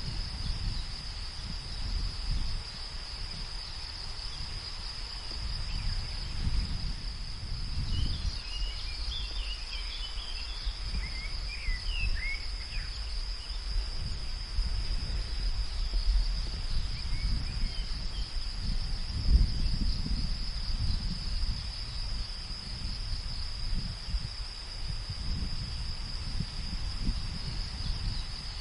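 Steady high-pitched chirring of insects such as crickets, over a low rumble of wind that swells and fades in gusts. A few short bird chirps come about a third of the way in.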